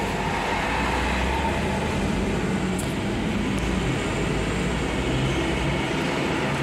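Steady road and engine noise inside a Daihatsu Terios's cabin as it drives along a toll road, with a low hum under a constant rush.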